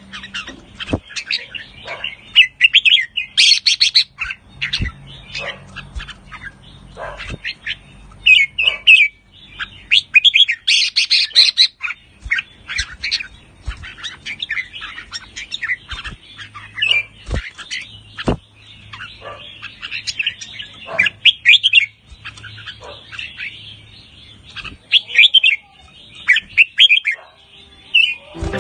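Red-whiskered bulbul singing in short, quick chirping phrases one after another, mixed with its rapid chattering 'rik' calls. A few sharp clicks fall between phrases.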